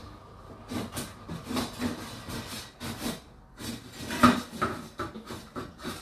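Whirlpool WFO3P33DLXUK dishwasher in its 65 °C main wash: water sprayed inside the closed tub splashing and drumming against the dishes in uneven surges, strongest about four seconds in.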